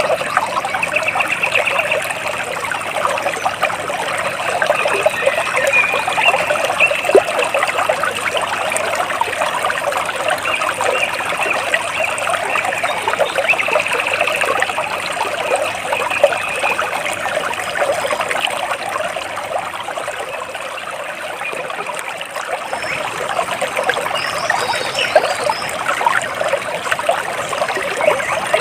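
Water trickling and splashing steadily over stones, with a few faint bird chirps above it.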